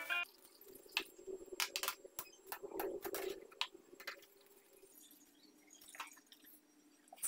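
Cooked instant noodles being scooped from a metal pot with a spoon and dropped into a plastic tray: scattered light clinks and taps of the spoon on the pot and tray, with wet noodle sounds, over a faint steady hum.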